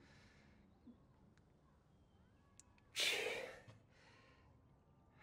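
A person breathing out heavily in sighs: a faint one at the start, then a loud one about three seconds in, followed by a shorter one.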